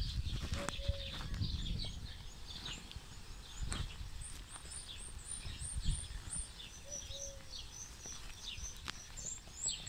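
Small songbirds singing, mostly quick high chirps repeated in rapid runs, over a low rumble with a few soft thumps.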